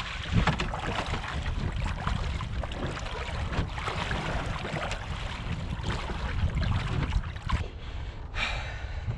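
Strong wind buffeting the microphone, with water splashing as boots wade through shallow water and a kayak is dragged along. A short, brighter rush of noise comes near the end.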